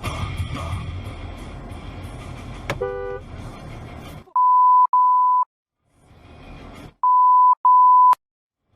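Censor bleeps: a loud, steady, single-pitched beep tone sounding in two pairs, the second pair about two and a half seconds after the first, with the audio cut out around them. Before them, about four seconds of traffic and road noise with a short toot.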